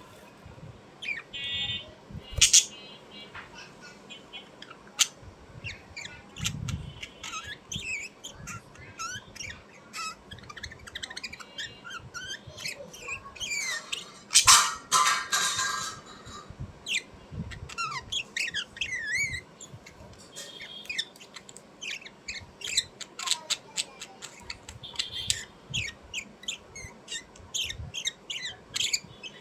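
Birds chirping and squawking in many short, quick calls, with a louder harsh squawk about halfway.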